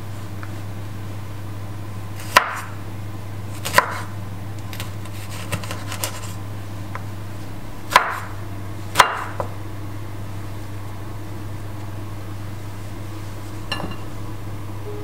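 Kitchen knife slicing kumquats on a wooden cutting board: the blade knocks sharply on the board with each cut, four loud knocks and a few softer taps, several seconds apart.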